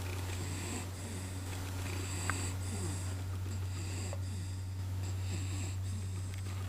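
Snoring during a nap: a run of breathy, wheezy snores over a steady low hum, with a small click about two seconds in.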